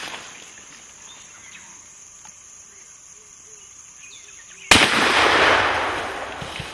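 A single shot from a scoped handgun about two-thirds of the way in, fired at a Cape buffalo. It is a sharp crack followed by a long rush of noise that fades over about two seconds. Before the shot there are only faint bush sounds.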